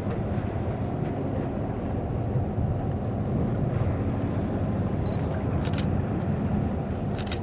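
Whale-watching boat's engine running steadily, a low rumble heard from on deck. A couple of short clicks come near the end.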